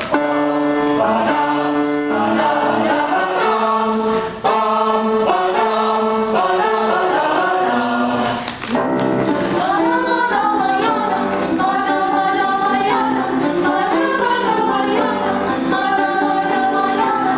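Choir singing, voices holding notes that change about every second. There is a short break in the sound a little over halfway through.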